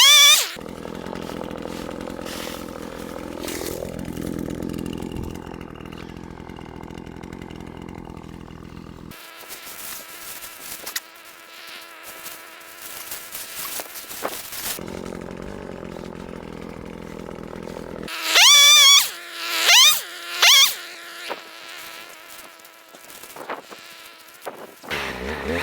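Chainsaw running: a steady buzzing idle, then revved hard three times about three-quarters through, each rev a quick rising whine.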